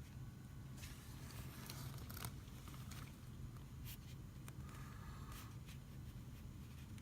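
Faint handling noise as a statue is turned by hand: scattered light clicks and scrapes over a steady low hum.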